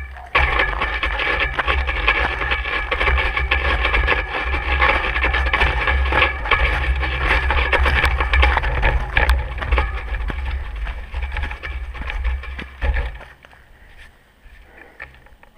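Road bike rolling fast down a bumpy fire road of packed snow and ice: tyre noise over the ice with many small knocks and rattles, and a low wind rumble on the handlebar-mounted microphone. The noise drops away sharply about thirteen seconds in.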